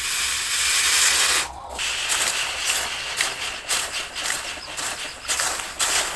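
Red-hot steel axe head, forged from a car axle, being quenched in a water trough to harden the blade: a loud steady hiss of steam for about the first second and a half, then an irregular crackling sputter as the water boils against the hot steel.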